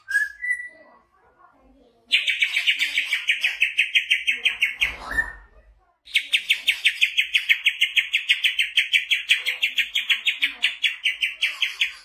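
Caged greater green leafbird (cucak hijau) singing in two long, rapid trills of evenly repeated high notes, the second about twice as long as the first. Between the trills there is a short rising whistle and a brief low thump.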